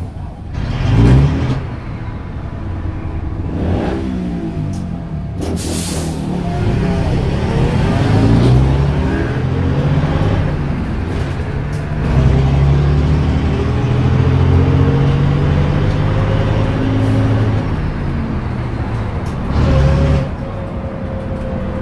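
Bristol RELL6L bus's Leyland 0.680 six-cylinder diesel engine, heard from inside the saloon, pulling away and accelerating hard through the gears, its note climbing and dropping at each change. A few short hisses of air are heard, and a faint rising whine builds in the second half.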